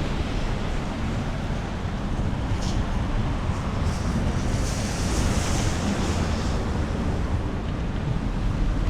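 Storm wind blowing hard and buffeting the microphone with a steady low rumble, with a hissing gust swelling about five seconds in.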